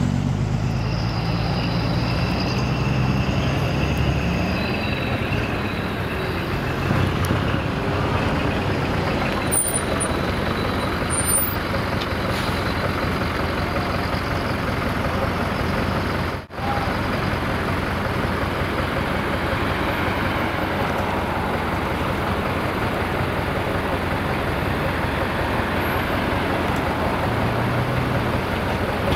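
Heavy trucks' diesel engines running as they drive out, a steady, loud mix of engine and exhaust noise.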